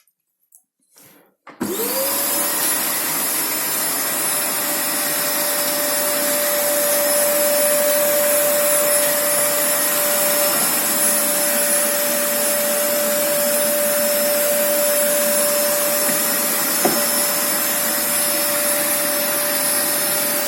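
Vacuum cleaner switched on: its motor spins up within a fraction of a second to a steady high whine and then runs steadily, with one faint knock near the end.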